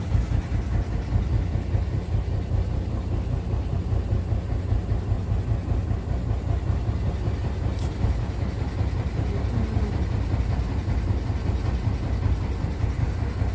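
A river boat's engine running steadily, a continuous low rumble.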